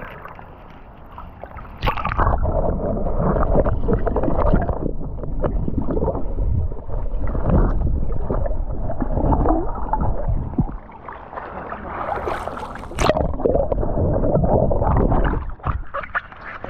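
Muffled rushing and gurgling of water against a submerged action camera while snorkeling, with bubble noise. The sound jumps louder as the camera goes under about two seconds in, and there is a sharp splash about thirteen seconds in.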